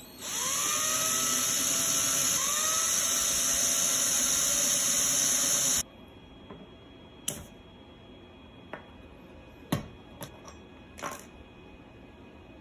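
Cordless drill drilling a hole in a brass bracket held in a 3D-printed jig. The motor whines up to speed, spins up again about two seconds in, and stops abruptly around halfway. A few light knocks follow as plastic parts are handled on a table.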